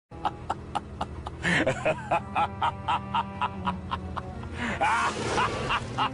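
A short music clip with a steady, quick beat of about four clicks a second, over which a couple of gliding, voice-like sounds rise and fall.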